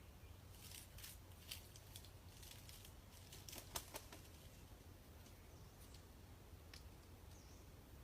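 Faint crackling and rustling, a scattered run of sharp clicks in the first half, over a low steady hum; a brief faint chirp near the end.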